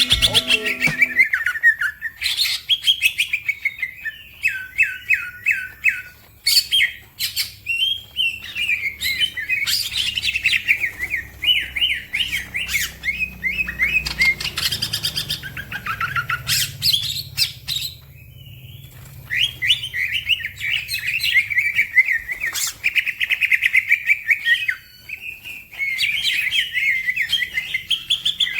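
Green leafbird (cucak ijo) singing a fast, continuous song of rapid warbled and chattering phrases with sharp high notes, broken by a few short pauses.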